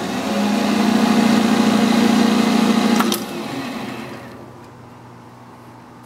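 Hardinge HSL speed lathe running at its 3000 rpm top speed with a steady hum. About three seconds in, a click of the headstock lever and the spindle brakes to a stop within about a second.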